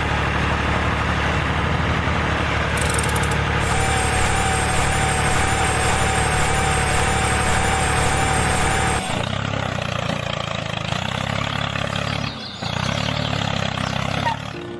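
An engine idling steadily, with an abrupt change in its sound about nine seconds in and a brief dip near the end.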